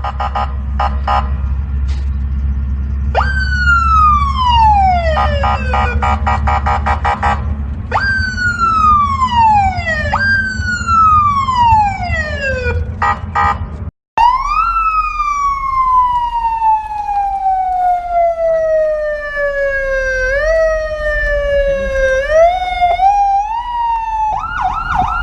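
Electronic police siren cycling through its tones. It gives rapid pulsing yelps, then sweeps that jump high and slide down in pitch over two to three seconds each. After a brief break midway comes one long, slowly falling wail that climbs back up in steps and ends in a fast warble; a low steady hum runs under the first half.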